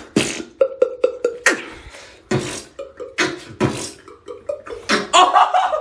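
Human beatboxing: a quick, uneven run of sharp mouth-made percussive hits and clicks, mixed with short hummed tones. Louder pitched vocal sounds come in near the end.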